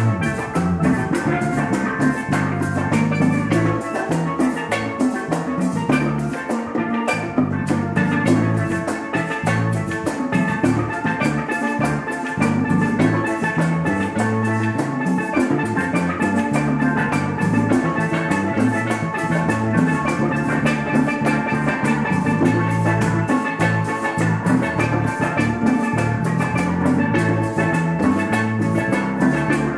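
Live church worship band playing an upbeat Latin-style instrumental passage: a drum kit keeping a quick steady beat under a moving bass line and bright, sustained melodic instrument lines.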